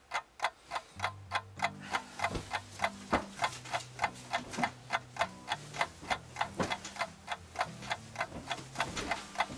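A clock ticking loudly and evenly, about three to four ticks a second, over low tones that shift in pitch from about a second in.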